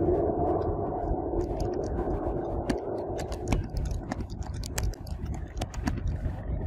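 Computer keyboard typing: a run of irregular keystroke clicks starting about a second in, over a steady low background rumble.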